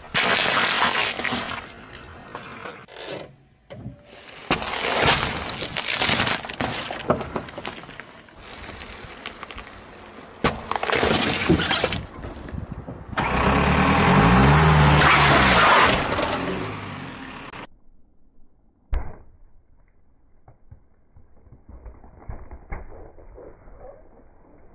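A car's tyre rolling over and crushing things: irregular cracking and crunching of eggs in a cardboard tray, then watermelons being split and squashed under a BMW's wheel. The car is running over them, with a long loud stretch in the middle. After a sudden change to a quieter, muffled sound there is one dull thud.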